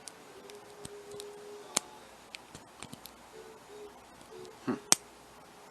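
Lock pick and tension wrench working inside a rusty padlock: scattered light metal ticks and scrapes, with two sharper clicks. A faint low hum comes and goes underneath.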